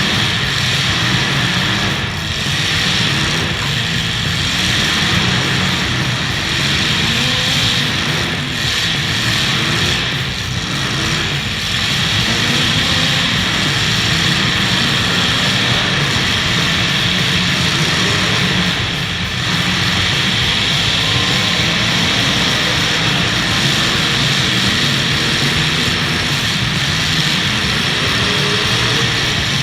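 Engines of several demolition derby cars running loudly, with rising and falling revs.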